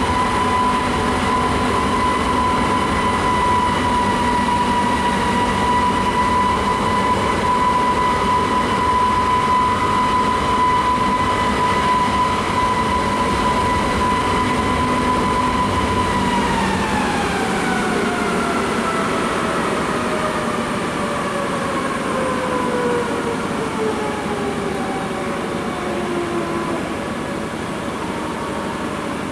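Airbus A321neo with Pratt & Whitney PW1100G geared turbofan engines on final approach: a steady rumble under a high whine that holds one pitch, then a little past halfway slides steadily lower.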